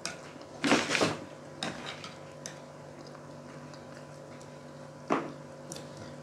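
Chopsticks clicking and tapping against a plate as pieces of fried pork are picked up: a few scattered clicks, the loudest about a second in and another about five seconds in, over a faint steady hum.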